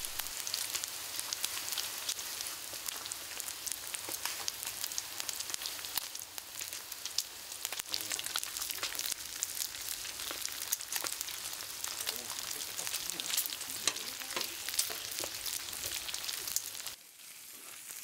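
Pork belly sizzling on a hot steel griddle plate: a steady crackling hiss of frying fat, dotted with many sharp little pops. It dips quieter about a second before the end.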